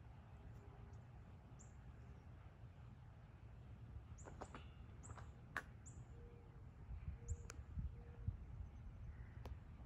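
Faint birds chirping: several short, high chirps, most of them bunched together about four to six seconds in and one more near seven seconds, over a low, steady outdoor rumble.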